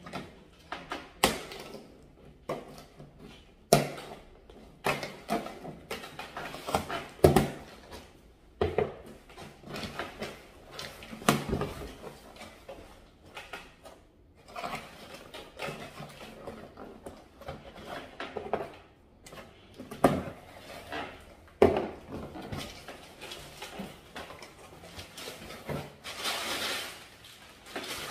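A cardboard shipping box being opened by hand: taped seams worked loose, flaps pulled open and the box knocked about on the countertop, giving irregular sharp knocks and rustles. Near the end, crumpled brown kraft packing paper rustles loudly as it is pulled out.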